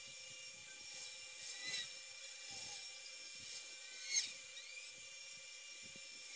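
Faint steady electronic whine and hiss from a recording device's microphone, with a few faint short chirps and ticks, the clearest about four seconds in.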